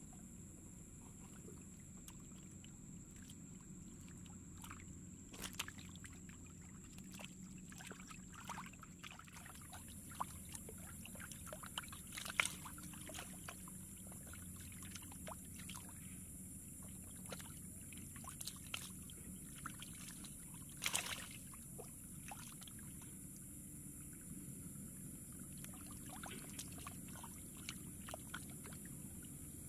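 Muddy water running and churning through a narrow channel into a fish trap, a low steady rush with scattered small splashes and clicks, the sharpest about twelve and twenty-one seconds in. A thin high hiss grows louder about ten seconds in.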